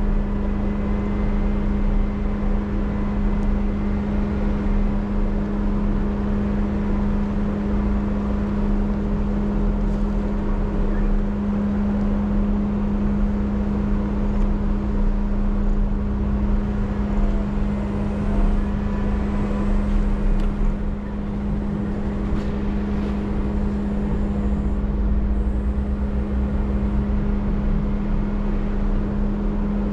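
Off-road vehicle's engine running at a steady pitch while driving a trail, heard as a constant drone over low rumble from the ride, with a few faint clicks around the middle.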